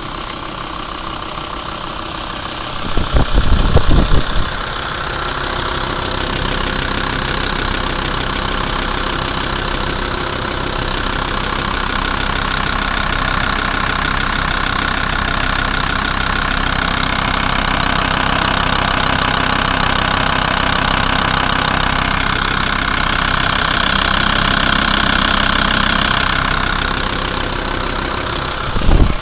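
Volkswagen LT 35's 2.5 TDI five-cylinder diesel idling with a knock, which the owner puts down to the Bosch high-pressure injection pump. A burst of loud low thumps comes about three seconds in, and another just before the end.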